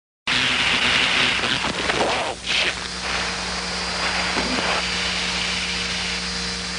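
F-16 cockpit audio on the HUD tape: a steady rushing jet-flight noise with a steady hum underneath. It cuts in abruptly a moment in and dips briefly about two seconds in, then carries on a little quieter.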